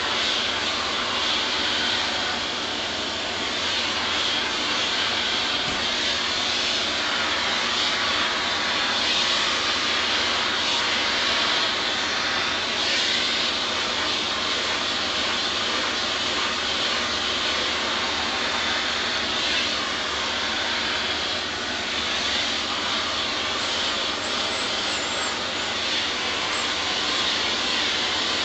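Vacuum cleaner running steadily, its brush nozzle on the hose being drawn over a cat's fur: a constant motor whine with a rushing suction hiss.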